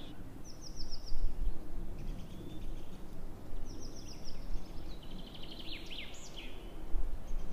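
Songbirds singing: a short high trill about half a second in, another about three and a half seconds in, then a run of quick chirps around five to six seconds in, over a steady low outdoor rumble.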